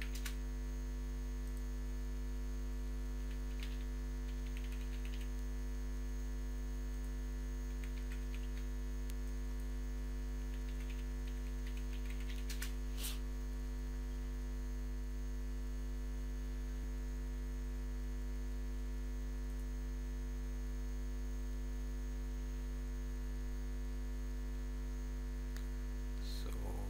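Steady low electrical mains hum from the recording setup, with faint computer keyboard typing and clicks scattered through the first half.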